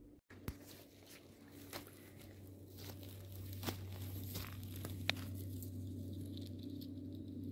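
Footsteps and rustling through dry fallen leaves, twigs and grass on the forest floor, with a couple of sharp snaps. A steady low hum underneath grows louder after about three seconds.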